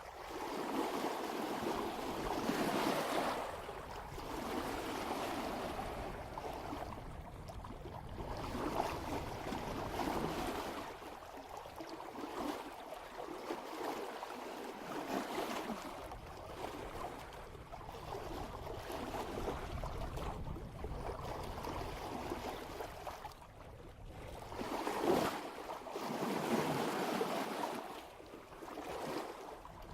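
Water rushing and splashing along the bow of a sailboat moving at about 3 knots, swelling and ebbing every few seconds as the hull meets each swell, with some wind on the microphone.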